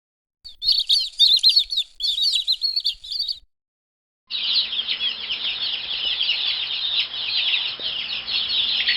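Baby chicks peeping: rapid high cheeps for about three seconds, then, after a second's silence, a longer, denser stretch of many chicks peeping together over a faint low hum.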